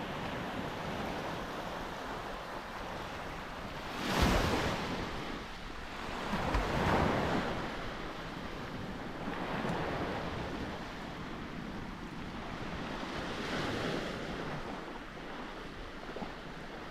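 Sea waves breaking on a beach, the surf swelling four times about three seconds apart, the first swell the loudest.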